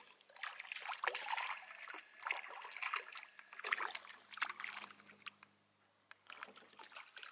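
A hooked fish thrashing and splashing at the water's surface beside a boat, a rapid run of splashes that eases off after about five seconds, with a few more splashes near the end.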